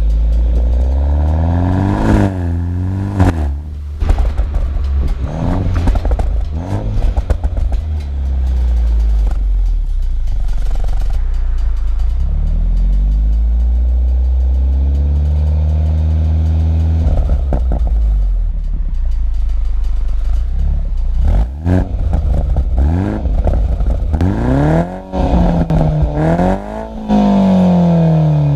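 BMW 125i's B48 turbocharged four-cylinder heard through a full M140i cat-back exhaust. It pulls hard with quick upshifts that drop the engine note, then crackles and pops on lift-off. It cruises with a steady low drone before accelerating and shifting again near the end.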